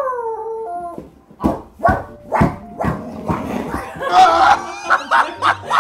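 Dog barking several times in short sharp barks, after a brief falling whine-like call at the start. A woman laughs about four seconds in, over light background music.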